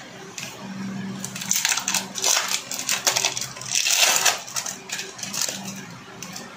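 Plastic cheese-slice wrapper crinkling as the slice is unwrapped: a string of irregular rustles, loudest about four seconds in.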